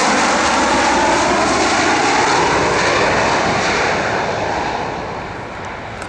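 Lockheed C-130 Hercules transport's four turboprop engines running loud as it passes low overhead on landing approach with gear down. The engine noise fades from about four seconds in as the aircraft descends away toward the runway.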